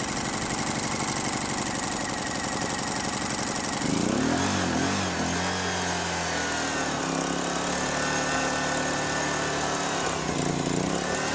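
Honeywell HW2000i inverter generator's small four-stroke engine running just after a recoil start, choke still on. About four seconds in its pitch rises, then wavers up and down.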